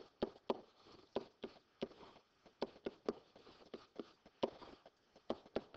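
Stylus ticking and tapping on a digital writing surface while an equation is handwritten. The ticks are short, sharp and irregular, about three a second.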